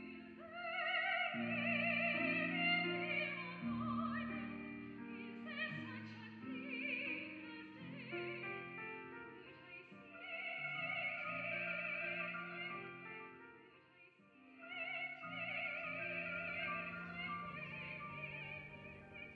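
Operatic singing with a strong vibrato over a classical accompaniment of held low notes, in long phrases that break off briefly about halfway and again about three-quarters through.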